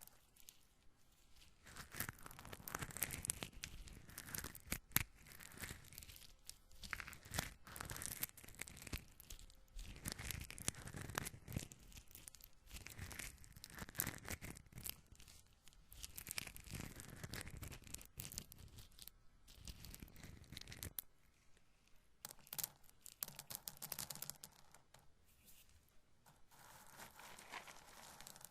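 Roasted corn kernels being rubbed and handled close to the microphone. They make a crisp, dry rustle that comes in waves, with many small sharp clicks, and it eases off near the end.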